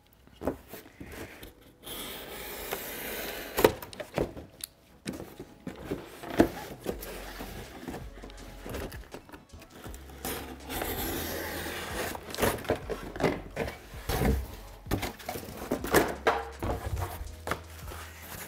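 A cardboard box being cut apart with a razor blade and handled: longer stretches of blade scraping through the cardboard, with rustling and scattered sharp knocks of the cardboard against the table.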